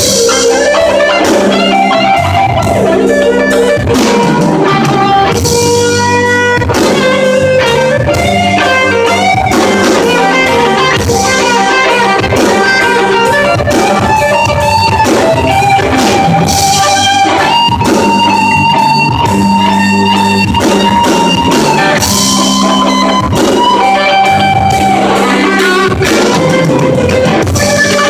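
Live band playing a slow blues-rock instrumental passage: a lead electric guitar plays sustained, bending notes over bass, keyboard and drums.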